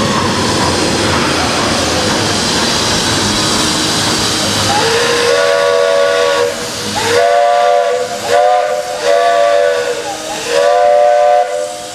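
Walt Disney World Railroad steam locomotive whistle blowing several blasts of a chord-like tone, each opening with a slight upward slide, after a few seconds of steady hissing.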